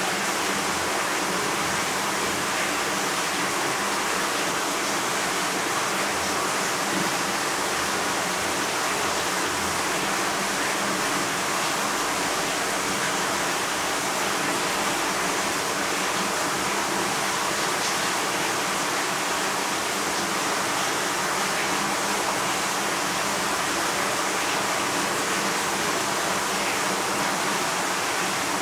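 Steady, unbroken rushing noise at an even level, with a faint low hum under it.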